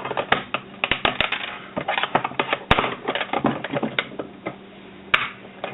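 Small metal and plastic parts of a rice cooker's lid clicking and clattering as it is taken apart: irregular sharp clicks and knocks, the sharpest about two and a half seconds in.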